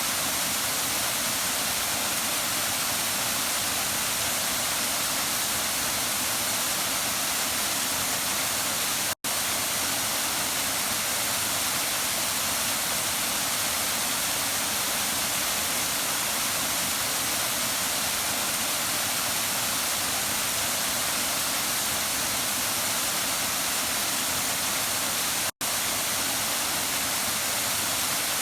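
Waterfall: a steady, loud rush of falling water. It breaks off twice for a split second of silence, about nine seconds in and again near the end.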